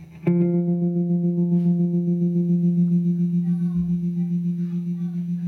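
Dean Psycho-Cabby electric guitar through a Fender Mustang GT40 amp: one low note struck about a quarter second in and left to ring, fading slowly with a steady wobble in its loudness.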